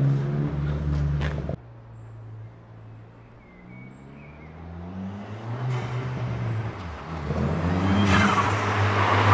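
Car engines: an orange Ford Focus ST pulling away, its engine note cutting off suddenly about a second and a half in. Then a red Ford Fiesta approaching, its engine rising in pitch in several glides as it accelerates through the gears, getting louder toward the end.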